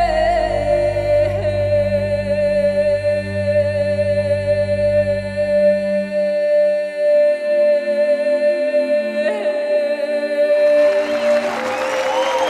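Performance music: a singer holds one long high note over a low drone, which drops out about halfway. Near the end a crowd breaks into applause.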